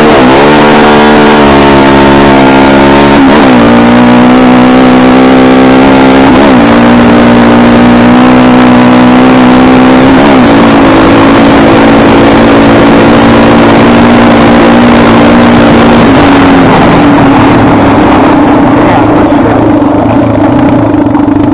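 Honda TRX400EX sport ATV's single-cylinder four-stroke engine launching hard from a standstill in second gear, revving up and dropping in pitch at each of three upshifts. It then holds steady at high revs for several seconds.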